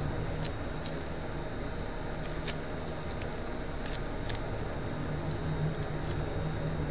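Small fawn bones being handled and set down by gloved fingers during gluing: a scattering of faint clicks and light taps, the sharpest about two and a half seconds in. A steady low hum runs underneath.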